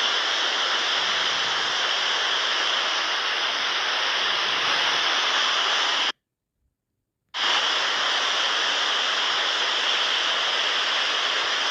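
Steady, even hiss of heavy rain, cut off by about a second of dead silence some six seconds in, then resuming unchanged.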